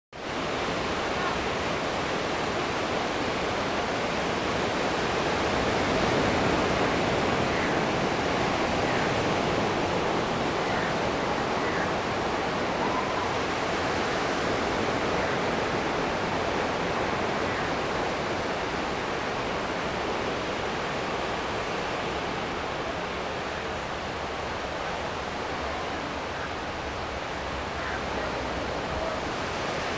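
Surf breaking and washing up on a sandy beach: a steady, even rush of noise with no separate wave crashes standing out.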